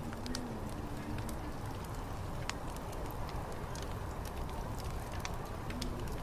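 Wood fire crackling, with frequent sharp pops over a steady low rumble of wind. A low wavering hum sounds briefly at the start and again near the end.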